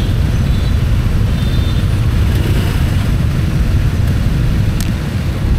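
Steady low rumble of engines and road traffic in slow, jammed traffic, with no single horn or event standing out.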